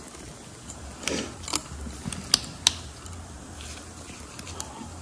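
Metal brake pad clips being pressed and seated into a front brake caliper bracket, making a few sharp metallic clicks and taps between about one and three seconds in.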